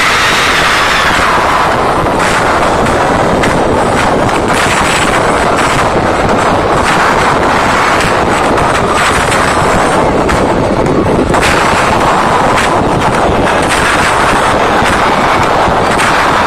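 Concert crowd of fans screaming, overloading a phone's microphone into a steady, distorted wash of noise.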